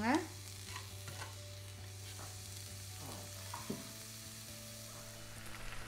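Chopped onions and tomatoes frying quietly in oil in a frying pan, a soft sizzle with a few faint knocks as tomato pieces are dropped in. A steady low hum runs underneath.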